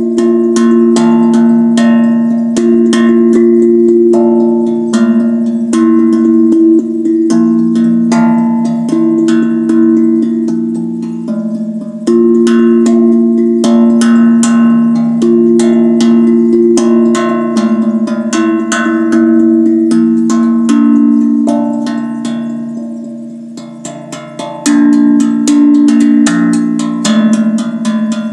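Zen Tambour steel tank drum played by hand: a fast, continuous run of strikes with ringing, overlapping low notes. The playing eases off briefly about three-quarters of the way through, then picks up again at full strength.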